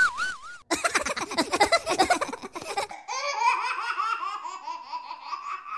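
High-pitched laughter in quick repeated pulses: a choppy run in the first half, then a steadier string of giggles, rising slightly in pitch, from about three seconds in.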